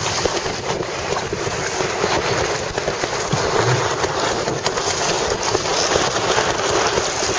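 Steady wind noise buffeting the microphone over choppy lake water, an even rushing hiss with no breaks.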